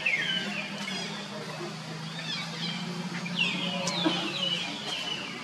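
A series of short, high animal calls, each falling in pitch, a few at first and more close together in the second half, over a low steady hum that fades out near the end.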